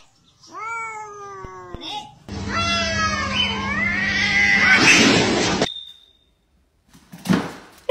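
Domestic cat yowling: a drawn-out cry falling in pitch, then a louder, wavering yowl lasting about three seconds. A short noisy burst comes near the end.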